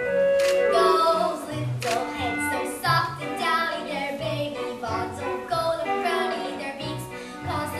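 Children singing a musical-theatre number over instrumental accompaniment with a bass line.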